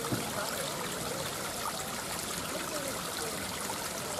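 Water of a small man-made cascade running over stones into a pond: a steady trickle and rush.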